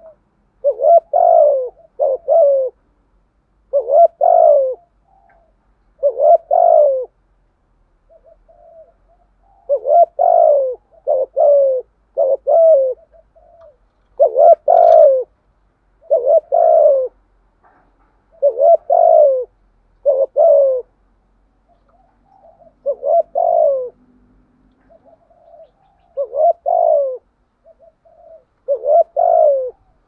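Spotted dove cooing in the rapid, insistent 'thúc gù' style: repeated short phrases of two or three falling coos every second or two, with soft brief notes between the phrases.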